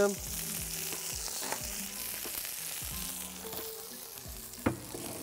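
Chicken breasts sizzling steadily in a frying pan, with one sharp knock near the end.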